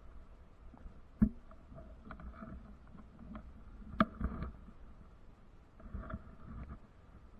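Scattered knocks and clicks, with a sharp one about a second in and another at four seconds followed by a short run of smaller knocks, over a low steady rumble of wind on the microphone.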